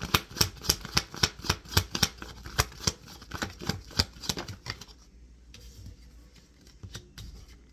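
Tarot cards being shuffled by hand: a quick, even run of crisp card slaps, about four a second, that stops about five seconds in, leaving only faint card handling.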